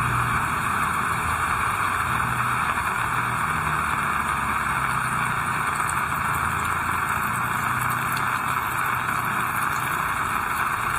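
Heavy rain falling in a steady, dense hiss. In the first few seconds a motor vehicle's engine runs low underneath, then fades out.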